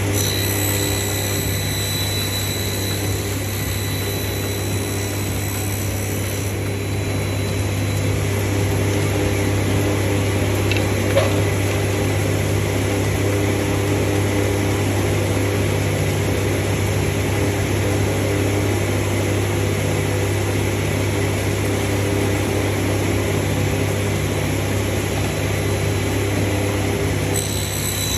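Electric power tool running steadily under a continuous motor hum, with one short tick about eleven seconds in.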